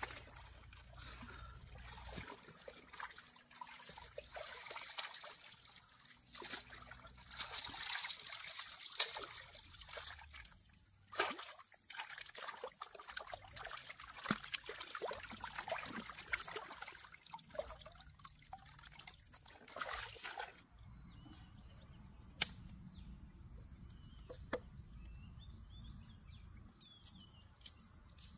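Stream water sloshing and trickling as a gutted crocodile carcass is handled and rinsed by hand in a shallow creek, with irregular splashes and small clicks. About two-thirds of the way through the splashing stops, leaving a quieter background with a few isolated sharp clicks.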